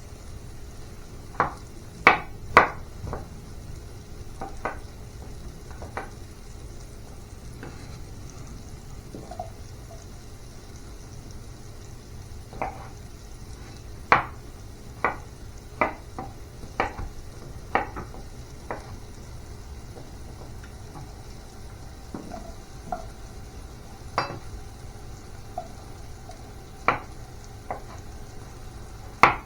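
Utensils and cookware clinking and knocking irregularly during kitchen food preparation, a few sharp knocks a second at times and pauses of several seconds between, over a steady low hum.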